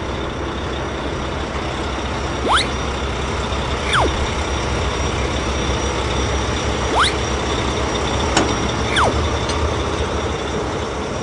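Cartoon truck sound effect: a heavy truck engine running steadily as a noisy rumble, with four quick whistle-like pitch sweeps, up, down, up, down, as the crane hoists and lowers the containers, and a sharp click or two.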